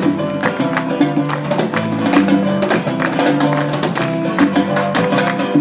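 Live salsa band playing: percussion keeps a steady, quick beat over a stepping bass line and sustained melody notes.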